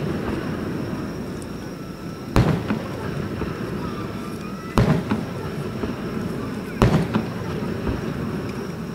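Fireworks shells bursting overhead: three loud bangs roughly two seconds apart, each trailing off briefly, over a steady background noise.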